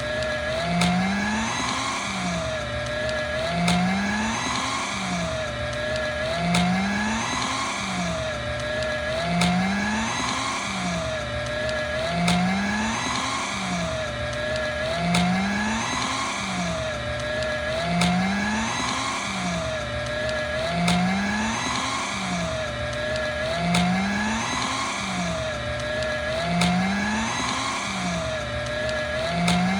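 Electric paper shredder running while cutting through stiff paper, its motor pitch sagging under the load and recovering. The same few seconds repeat about every three seconds as a loop, with a short tick at each repeat.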